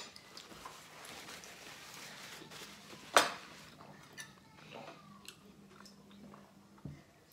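A single sharp clink of a fork or spoon against a plate about three seconds in, followed by a few faint ticks of cutlery, over a quiet room background.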